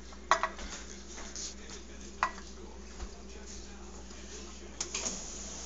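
Tin steam toy boat afloat in a sink of water: a few sharp clicks, about half a second, two seconds and five seconds in, over a faint steady hiss.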